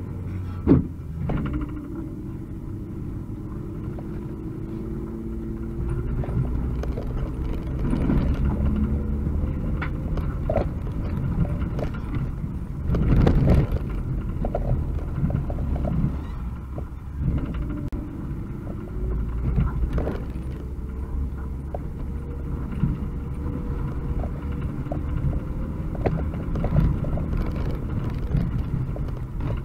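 UAZ 2206 van's engine and drivetrain heard from inside the cab, pulling along a rough gravel track. The pitch rises slowly twice, knocks and rattles come from the body over bumps, and there is a louder jolt about halfway through.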